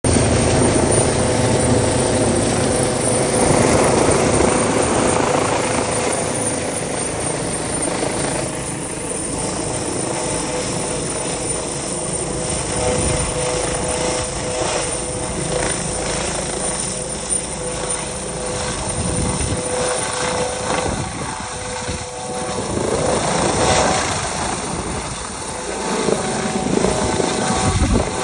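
Rescue helicopter hovering overhead during a long-line rescue, its rotor and turbine running steadily.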